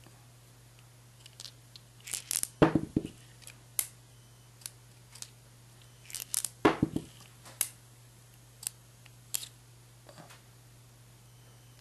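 Ruger Vaquero .357 single-action revolver being unloaded by hand: light metallic clicks as the cylinder is turned and the ejector rod pushed, with two louder clattering bursts about two and a half and six and a half seconds in as ejected rounds drop onto the table.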